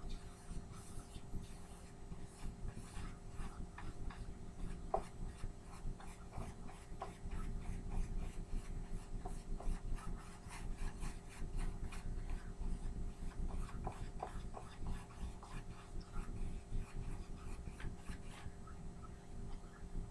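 Irregular rubbing and scraping strokes with many small clicks, over a steady low hum.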